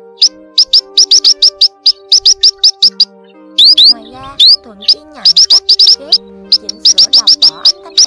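Young munias calling: a quick, steady run of short, high, rising chirps, several a second, with a few longer wavering calls mixed in. Background music with long held notes plays beneath.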